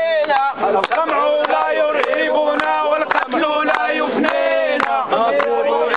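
A group of men chanting slogans together, with hand-clapping.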